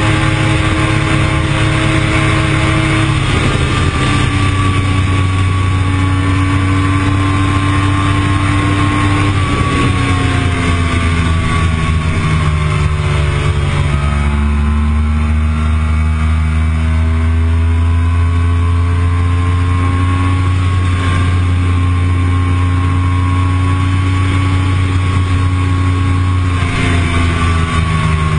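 Yamaha R1 crossplane inline-four with a full Akrapovič exhaust running hard under load. Its note climbs slowly and drops suddenly about four times, like a run up through the gears.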